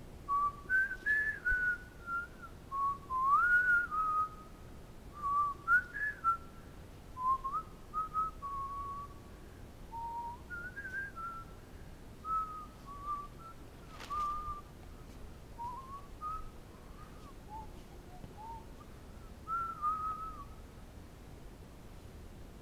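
A person whistling a slow, wandering tune of short notes that slide up and down in pitch. The phrases come less often through the second half, and the whistling stops near the end.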